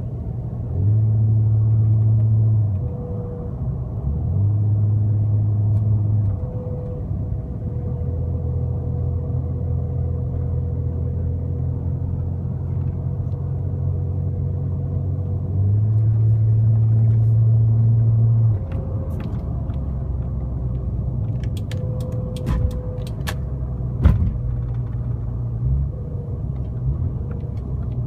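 A 1999 Lexus ES300 running, with a thin steady whine over the engine hum. The engine note steps louder and holds for two to three seconds, three times. Near the end come a few clicks and one sharp knock.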